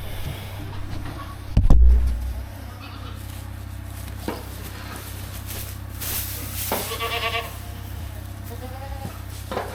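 Goats bleating: one wavering call about two-thirds of the way through and a shorter gliding one near the end. There is a loud thump about two seconds in and a steady low rumble underneath.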